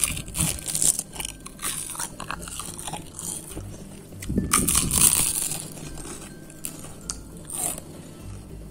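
Biting into and chewing crispy fried potato sticks with a cornstarch crust: irregular crunching, heaviest about four to five seconds in.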